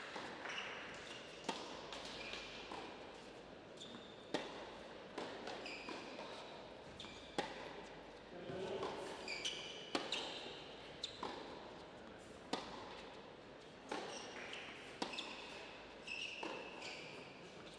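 Tennis rally on an indoor hard court: racquets hitting the ball and the ball bouncing, sharp knocks about every second, with tennis shoes squeaking on the court between shots.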